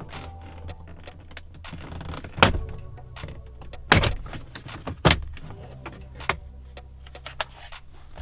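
Plastic retaining clips of a Ram 1500's dash trim panel snapping loose as the panel is pried off: three sharp snaps about a second apart, with smaller clicks and rattles between, over a low steady hum.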